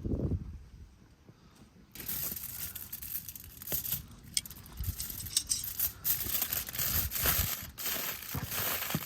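Low thuds, then about two seconds in, dense crunching and crinkling noise with scattered sharp clicks.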